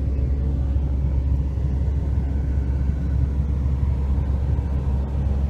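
Steady low rumble of a car being driven, road and engine noise without let-up.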